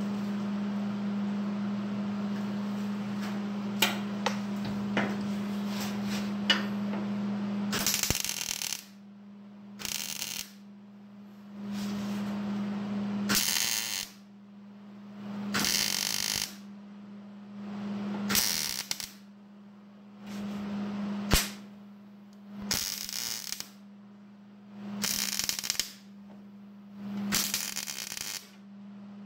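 Electric welder laying a row of short stitch welds on sheet-metal truck bed floor: crackling bursts about a second long, repeating every two and a half seconds or so, over a steady electrical hum. For the first several seconds there is only the steady hum and noise, with a few sharp clicks.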